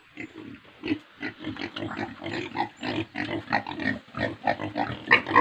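Several pigs grunting in quick succession, about three short grunts a second.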